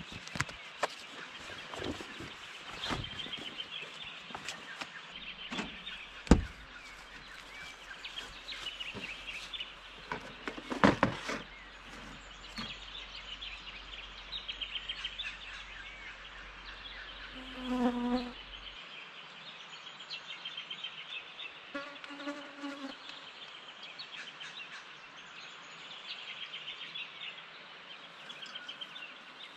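Insects chirring steadily outdoors, over scattered knocks and rustles of camping gear being handled; the loudest knock is about six seconds in.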